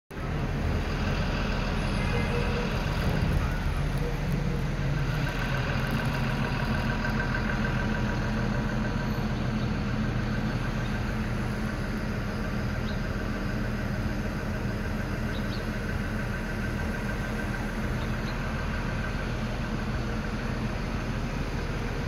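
Steady city street traffic: car, van and bus engines running along the street.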